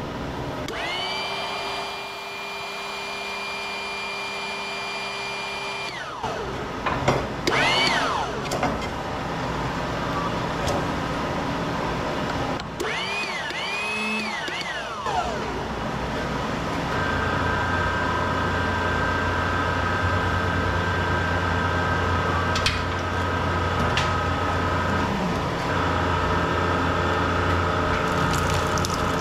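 Stator wrecker machine running with a steady motor whine that climbs in pitch as it starts, swoops up and down in pitch twice, and settles into a steady hum with a higher held tone through the second half. There is no grinding.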